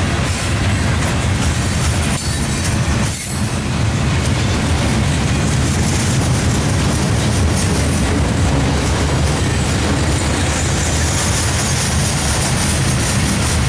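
Norfolk Southern manifest freight train's cars (covered hoppers, coil cars, gondolas) rolling past at close range: a steady, loud rumble of steel wheels on the rails, dipping briefly about three seconds in.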